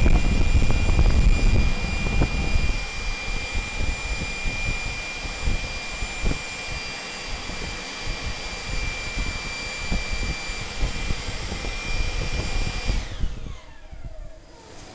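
Homemade gas turbine burner can firing with a loud low combustion roar that drops off about three seconds in as the flame falters, leaving a weaker crackling burn over a steady high machine whine. Near the end the whine falls in pitch and fades as it winds down.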